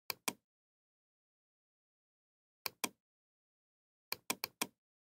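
Computer mouse clicking: a quick double-click at the start, another double-click about two and a half seconds in, and four quick clicks near the end.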